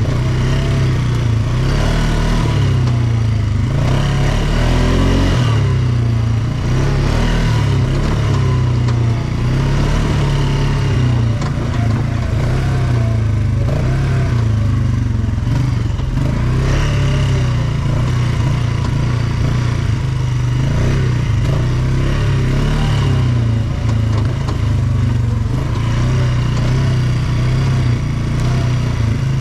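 ATV engine running while riding, its pitch rising and falling with the throttle, with frequent short knocks and rattles throughout.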